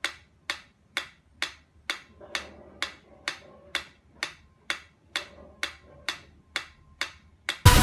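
Steady, even ticking, about two and a half sharp clicks a second. Loud music cuts in right at the end.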